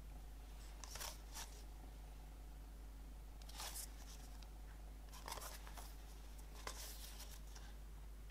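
Fingers handling a CD case as it is turned over and tilted, with short, soft scratchy rubs and scrapes of fingertips on the packaging, a few separate times. A faint steady hum runs underneath.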